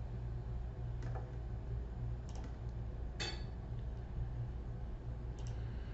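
A few scattered sharp clicks over a steady low hum.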